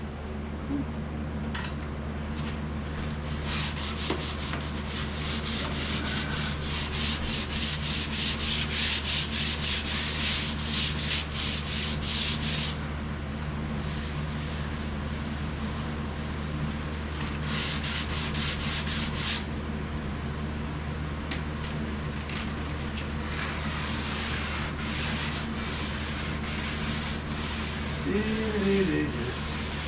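Sandpaper being rubbed by hand over a painted steel body panel in quick back-and-forth strokes, about two to three a second. The strokes stop briefly twice and are fainter in the last third.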